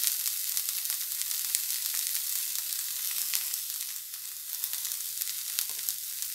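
Sweet corn kernels sizzling in ghee in a hot nonstick pan: a steady hiss with many small scattered crackles.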